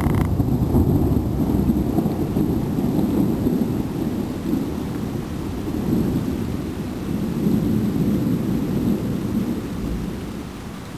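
Thunder rumbling: it starts abruptly, then rolls on as a long low rumble that swells and fades, easing off near the end. Rain falls faintly underneath.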